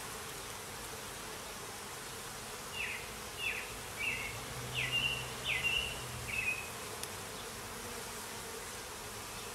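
Steady hum of a honey bee colony at an open hive. A run of six short, high chirps, each falling in pitch, comes from about three to six and a half seconds in.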